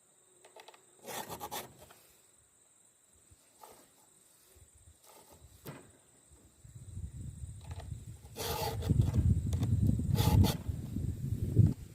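A few short rasping strokes of a file across a 3/8" chainsaw chain's cutters, one early and two more in the second half. A low rumble builds through the second half and is the loudest sound.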